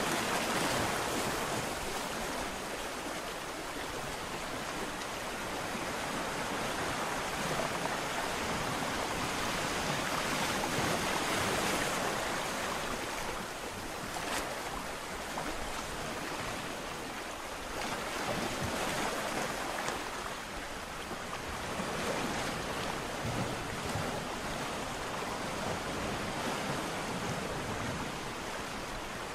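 Ocean surf: waves breaking and washing in as a continuous rushing sound that swells and eases every few seconds.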